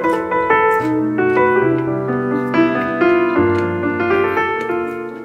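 Background piano music: a melody over held low notes, getting quieter near the end.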